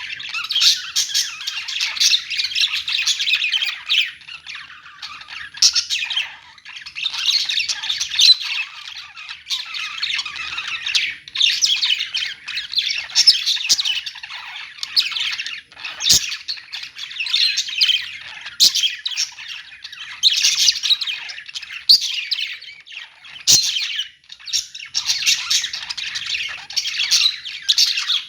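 Many small parrots (budgies and lovebirds) chattering and squawking together, in waves that swell and ease every few seconds, with a few sharp clicks in between.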